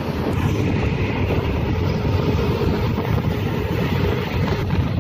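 Wind rushing over the microphone on a moving motorcycle, mixed with its engine and road noise, with a faint steady hum running underneath.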